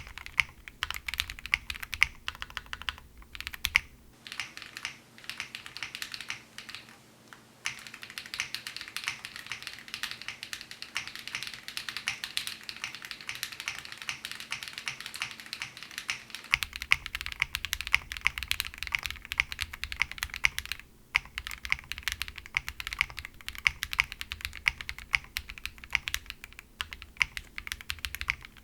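Continuous typing on a jris65, a gasket-mounted 65% mechanical keyboard built without foam, with KTT Rose linear switches on an FR4 plate and TX stabilizers: a dense, steady run of keystroke clacks. The deep low end of the keystrokes drops away from about four to sixteen seconds in, then returns.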